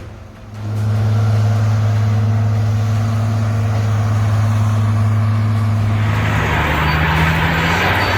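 Heavy vehicle engine running with a steady low hum, coming up about half a second in; from about six seconds in a rougher, noisier sound joins it.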